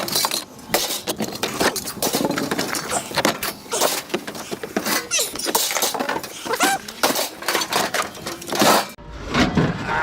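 Scrap metal being thrown off a truck onto a scrapyard pile: a quick run of clanks and crashes, some pieces ringing briefly after they land.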